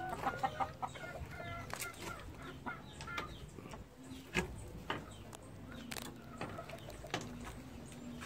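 Pheasants clucking with short, quick calls in the first second or so, followed by scattered sharp clicks and knocks.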